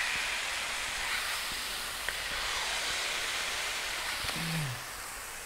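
Burger patties sizzling steadily on a hot flat-top griddle as they are pressed down with a burger press. A brief low vocal sound from a man a little past four seconds in, after which the sizzle eases slightly.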